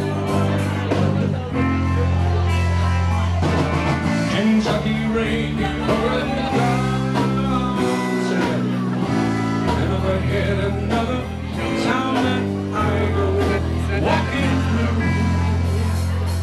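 A live band playing loudly, with guitar over a bass line that holds each note for a second or two.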